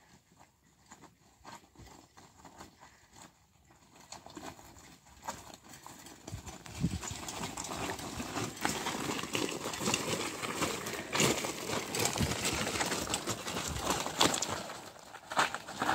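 Recumbent trike with 26- and 29-inch wheels rolling over a loose rocky track, its tyres crunching and clattering on the stones in a dense run of small knocks. Faint at first, it grows louder from about six seconds in as the trike comes close, is loudest as it passes, and drops off near the end.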